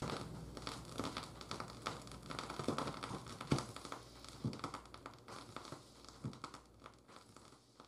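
Vinyl record surface noise: scattered crackles and pops from the stylus of a Shure phono cartridge riding the groove with no music playing, slowly fading out over a low steady hum.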